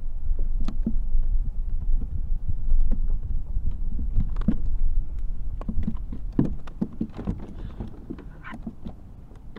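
Irregular knocks and clatter of handling on a plastic kayak, over a steady low rumble; the knocking is busiest in the first half and dies down after about seven seconds.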